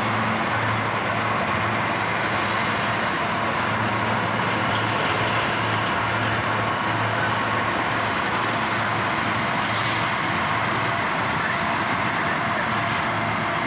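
Diesel subway work-train locomotive moving along the bridge tracks: a steady low engine hum, slightly pulsing, over a constant rumble of wheels and running gear.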